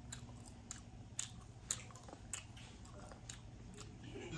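Close-up sounds of a person biting and chewing barbecue pork rib meat off the bone: wet mouth clicks and smacks, about two a second.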